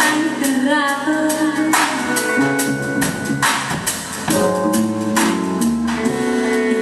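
Live band playing: drum kit hits on a steady beat over electric guitar, bass and keyboard chords.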